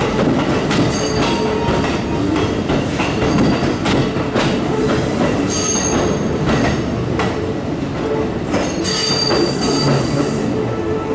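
Hankyu 2300 series electric train rolling over the depot yard's points, wheels clicking over the rail joints and frogs. A brief high wheel squeal comes about 6 s in and again about 9 s in.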